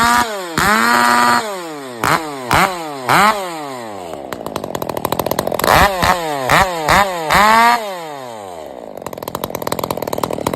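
Poulan PP4620 46 cc two-stroke chainsaw, ported for racing, revved in quick throttle blips that fall back to idle, with two short holds at full revs, then settling into a fast idle near the end. The carburettor is being leaned out for the port work.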